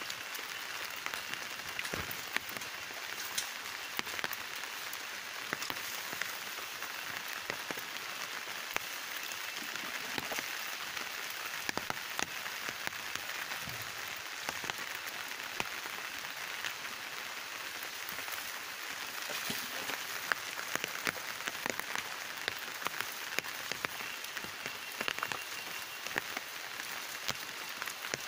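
Steady rain falling, an even patter of many separate drops.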